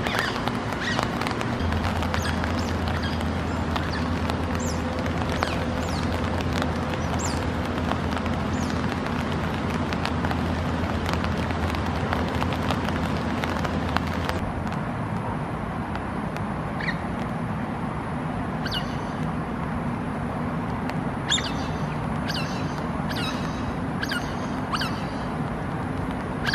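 Steady rain falling on a river's surface, with scattered short high chirps from smooth-coated otters. About halfway through, the rain noise changes and runs of short, falling high chirps come in clusters.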